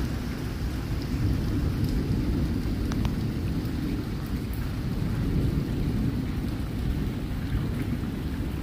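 Heavy rain falling during a thunderstorm, with a steady deep rumble of thunder and a few faint ticks of drops.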